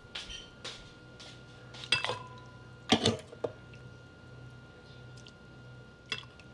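Ladle clinking against a pot and bowls as broth is dished out: a series of short sharp clinks, the loudest about three seconds in, over a steady faint hum.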